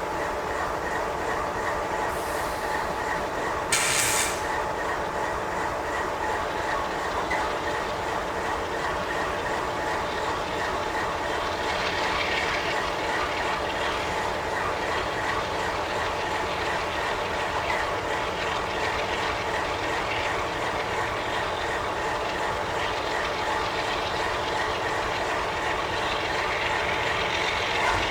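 Double-stack intermodal container well cars rolling past, their wheels running steadily on the rails, with a brief loud burst of noise about four seconds in.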